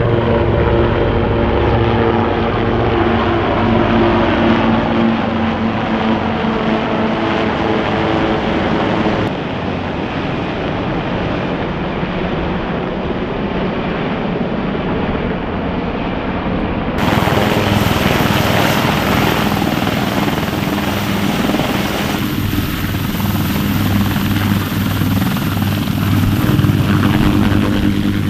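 U.S. Marine Corps attack helicopters passing overhead in formation: a steady drone of rotors and turbine engines, changing in character at edit cuts. In the last part a nearer AH-1Z Viper's rotor beats in a steady low pulse.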